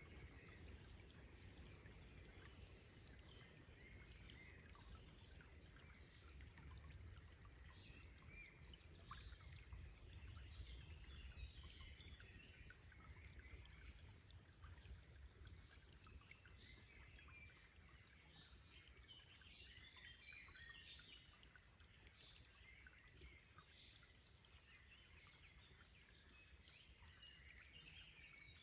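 Faint forest birdsong, many short scattered chirps and calls, over the low steady rush of a stream.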